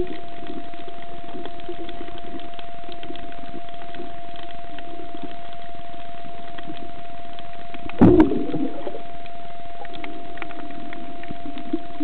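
Underwater audio from a camera held below the surface while snorkeling: steady noise dotted with scattered small clicks, with a constant thin hum. A sudden loud thump with a short gurgling trail comes about eight seconds in.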